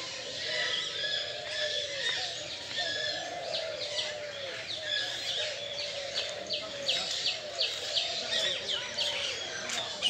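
Many birds calling at once: short, high, quickly falling chirps, repeated several times a second and more frequent toward the end, over lower arching calls.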